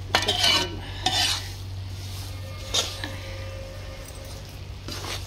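Ladle scraping and knocking around a large kadhai as a thick, heavy mixture of moong dal flour and gram flour is stir-roasted in ghee. There are four strokes: two in the first second and a half, one near the middle and one near the end.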